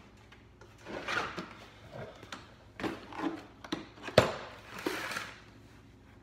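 Rustling and a string of knocks and clicks from things being handled close to the microphone, the loudest a sharp knock about four seconds in.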